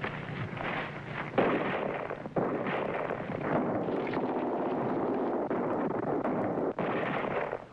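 Battle sounds on an old film soundtrack: a sudden loud blast about a second and a half in, then a sustained noisy rush of firing, with brief breaks, that cuts off just before the end.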